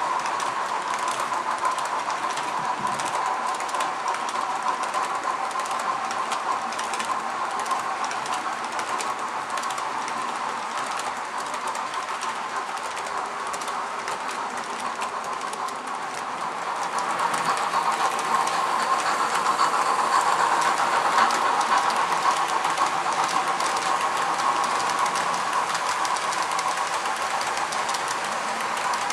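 Model passenger train rolling past on a model railway, its coach wheels clicking fast over the rail joints over a steady hum. It grows louder about halfway through.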